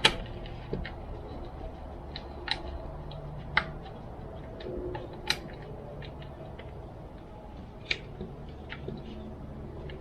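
Irregular sharp clicks and taps of hand tools and small chainsaw parts being handled and fitted during reassembly, a second or two apart, over a low steady hum.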